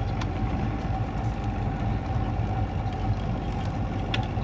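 Fishing boat's engine running steadily, a low rumble with a constant whine over it and a few faint clicks.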